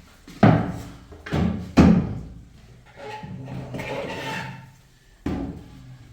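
Four hard knocks or thuds, two loud ones close together in the first two seconds and another near the end, with a fainter pitched sound in between.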